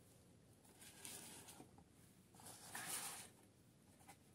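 Soft rustling and scraping as a cardboard doll box and a small plastic doll are handled and moved on a tabletop: two short spells, the second and louder one around the middle, with a few faint taps near the end.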